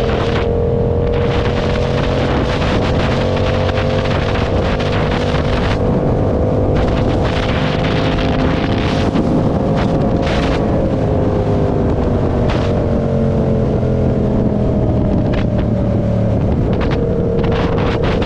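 Motorcycle engine pulling steadily while riding, its pitch rising slowly for the first half and then easing down, with heavy wind buffeting on the microphone.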